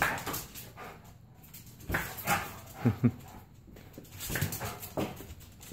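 Dog giving a few short, brief vocal sounds while playing with a balloon, mixed with scattered light knocks.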